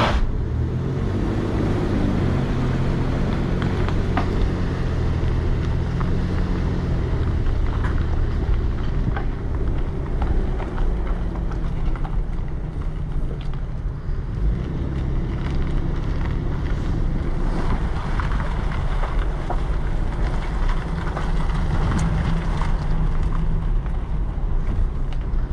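Pickup truck engine running under load in four-wheel drive, pulling a trailered boat up a launch ramp; its low hum shifts in pitch over the first several seconds, then settles.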